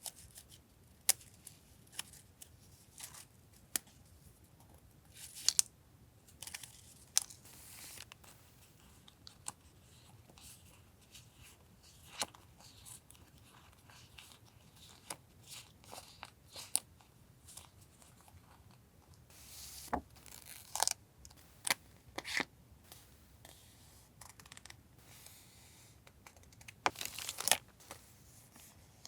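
Paper and plastic packaging being handled and torn open: scattered sharp crackles and clicks, with a few longer rustling stretches.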